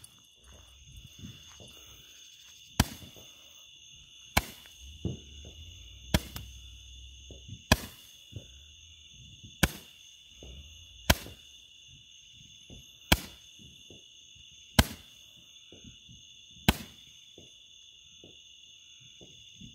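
Handheld Roman candle firing its stars one after another: nine sharp pops, one about every one and a half to two seconds, over a steady chorus of crickets.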